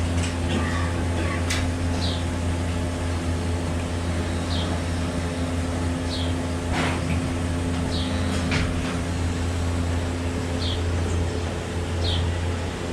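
Steady low hum of barn machinery running during milking, with short high chirps every couple of seconds and a few sharp clicks.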